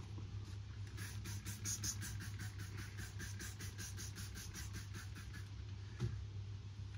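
Plastic ice scraper used as a squeegee, rubbed in quick short strokes over a wet-applied vinyl decal to push out the bubbles: a rapid rubbing at about five strokes a second, starting about a second in and stopping a second or so before a single click.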